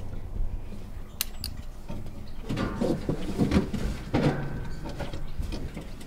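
Wooden folding attic ladder knocking and creaking under someone's feet as they climb it. Two sharp clicks come about a second in, then a run of knocks and creaks in the middle.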